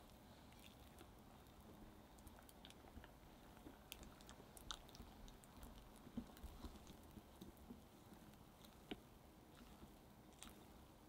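Silicone-coated wire whisk folding meringue into thick chocolate batter in a glass bowl: faint, irregular soft squishing with small clicks as the whisk touches the glass.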